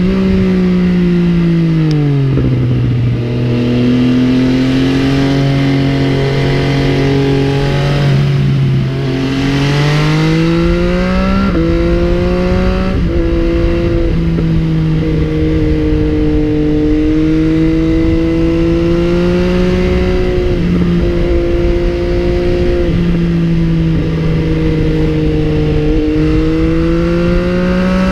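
MV Agusta Brutale 800's inline three-cylinder engine running under way on the road: its pitch falls about two seconds in, climbs again around ten seconds, then holds fairly steady with a few brief dips, as at gear changes and throttle changes.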